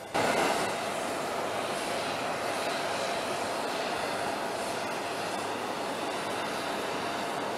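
Steady rushing noise of idling aircraft engines, which begins abruptly at the very start.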